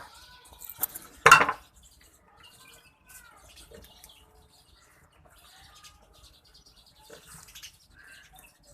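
Short chirping bird calls over goats feeding, with one brief, loud, noisy burst about a second in.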